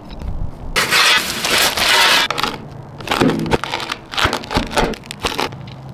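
Baked pizza crust crunching as a long blade is pressed down through it on a wooden board: one long crunch starting about a second in, then a run of shorter crunches.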